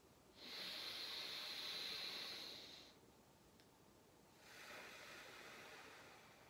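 A man taking a slow, deep breath in paced rhythmic (fourfold) breathing. A long hissing inhale lasts about two and a half seconds, then a pause while the breath is held, then a softer exhale near the end.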